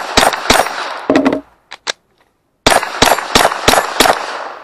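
Rimfire rifle firing rapid shots in a timed steel-challenge string: a quick run of shots, a pause of about a second with a couple of faint clicks, then another fast run of about six shots.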